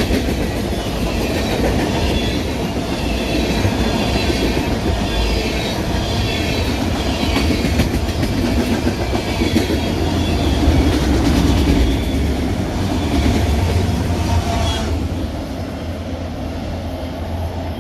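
Cars of a CPKC freight train rolling past close by: a steady low rumble of steel wheels on the rails with higher rail noise above it, which thins out about three seconds before the end.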